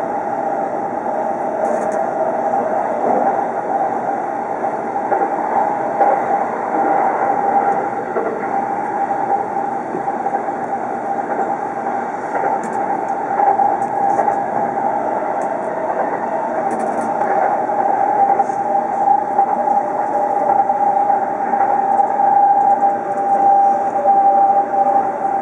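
Chuo Line commuter train running at speed, heard inside the passenger car: a continuous rumble of the wheels on the rails with a steady whine over it.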